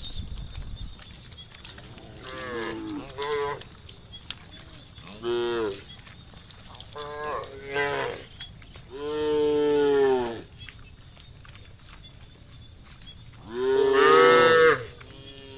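Cows mooing, about eight calls of differing pitch and length, some coming close together. A long moo comes near the middle and the loudest one near the end.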